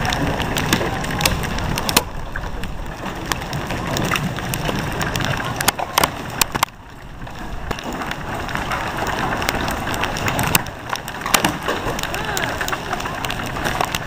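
Stormy wind buffeting the camera microphone: a steady rushing noise broken by many sharp crackling clicks, easing briefly about seven seconds in.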